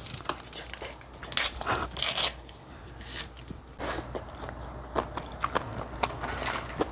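Close-miked eating sounds of spicy malaxiangguo: noodles slurped in, crunchy bites of vegetables and chewing, as irregular sharp crunches and wet clicks.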